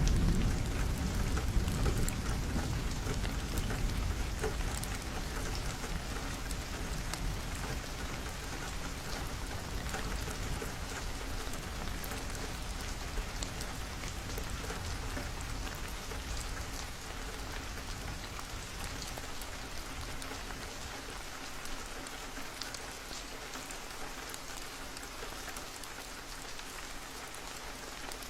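Steady rain with many individual drops tapping on a window. A low rumble of thunder dies away over the first few seconds, and the rain grows slightly quieter through the rest.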